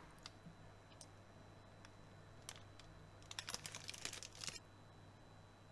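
Small metal spoon clinking against a glass bowl: a few single light clicks, then a quick run of rapid clinks for about a second and a half that stops abruptly.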